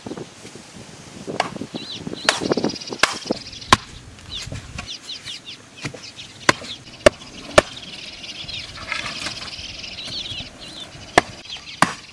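Wooden stakes being pounded into dirt ground: a series of sharp, irregularly spaced knocks.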